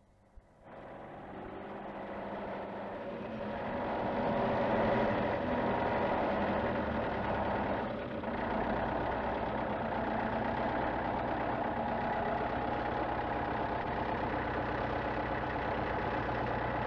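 Tractor engine running steadily. It comes in about a second in, grows louder over the next few seconds, dips briefly midway and cuts off abruptly at the end.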